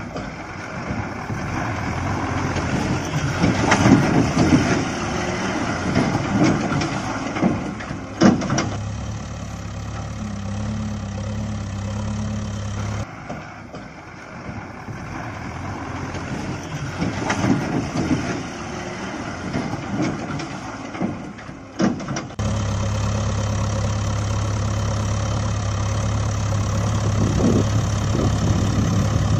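Small stones and gravel crunching and rattling as a toy backhoe loader's bucket scoops into a stone pile, with sharp knocks at about eight and twenty-two seconds in. This alternates with a steady low engine-idling hum, heard about ten seconds in and again from about twenty-two seconds on.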